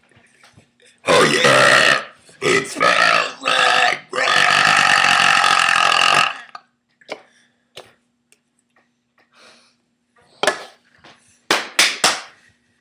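A person burping loudly: three short burps starting about a second in, then one long pitched belch of about two seconds. A few short sharp bursts come near the end.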